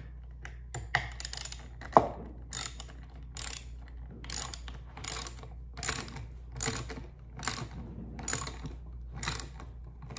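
Ratchet socket wrench with a hex bit socket tightening a bolt: a rattle of pawl clicks on each return stroke, repeating a little more than once a second, with a sharper knock about two seconds in. The bolt is being snugged down into a chair's wooden corner bracket.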